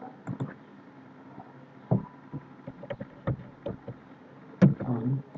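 Irregular clicks and taps of a computer mouse and keyboard, a few per second at uneven spacing, the loudest about four and a half seconds in.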